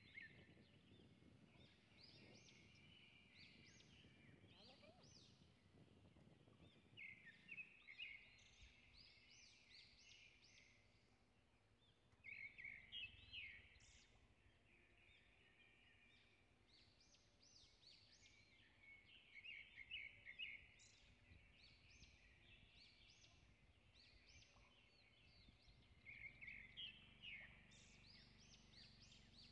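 Birds calling, with a bout of quick, high chirping notes about every six or seven seconds, over faint outdoor background noise with a low rumble in the first several seconds.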